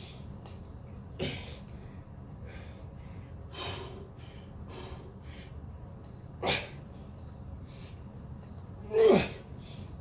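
A man's sharp, forceful breaths pushed out with each push-up, four of them spaced a couple of seconds apart. The last is the loudest, a grunt that falls in pitch.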